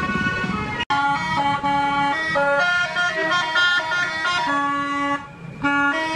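Bus telolet horn playing a quick tune of stepped notes, several tones sounding together, with a short break about five seconds in.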